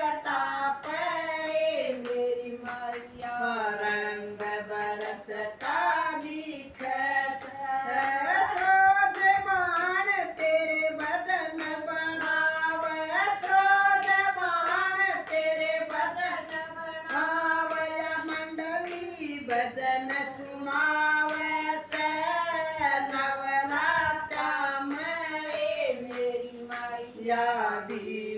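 Women singing a Hindu devotional bhajan together, with steady hand-clapping keeping time.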